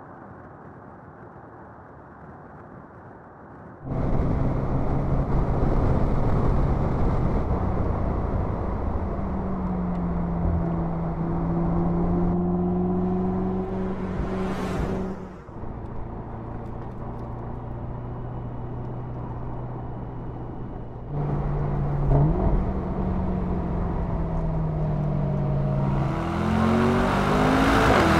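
Mercedes-AMG SL's twin-turbocharged V8 running on the road: a quiet low rumble at first, then louder as it pulls, its pitch rising, holding and falling with the throttle. About halfway there is a short rising whoosh. Near the end it accelerates hard, the pitch climbing in steps as it shifts up through the gears.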